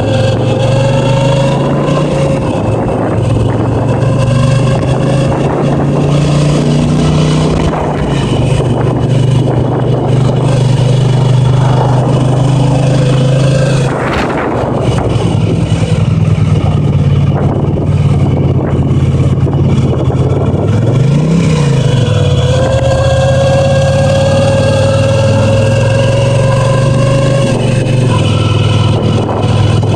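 Honda CX500's V-twin engine running on the road, its pitch shifting with the throttle and rising then falling briefly about two-thirds of the way through. A thin whine runs over it and drifts in pitch: a noise from a failing speedometer gauge, not the speedo cable.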